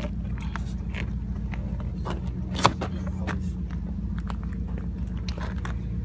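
A crowbar prying at a dry-rotted tire's bead on an alloy rim, with scattered scrapes and clicks and one sharp knock about two and a half seconds in, over a steady low hum.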